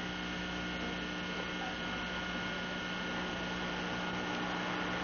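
Steady electrical hum with a constant hiss: background noise with several fixed tones and nothing else happening.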